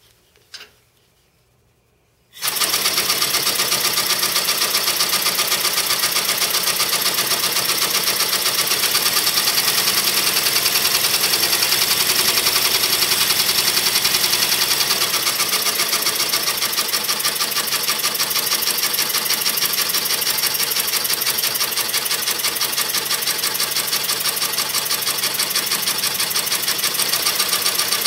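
Home-built single-cylinder double-acting steam engine with eccentric-driven piston valves starting about two seconds in after a couple of faint clicks, then running at a steady fast speed with a rapid, even mechanical clatter. The clatter is loud because the engine is mounted on a utility-trailer tongue and the hitched pickup's bed amplifies it.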